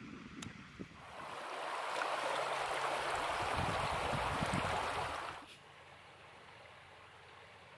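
Steady rush of flowing river water that swells in about a second in and cuts off abruptly about five and a half seconds in, leaving only a faint, quiet background.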